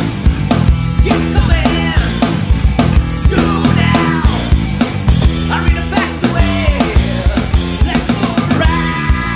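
Demo recording of a classic rock song, with a drum kit keeping a steady driving beat under a sliding melody line.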